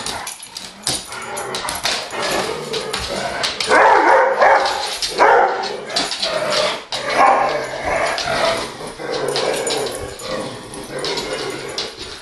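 Dog barking and whimpering repeatedly in loud bursts, the dog agitated by a person wearing a wig.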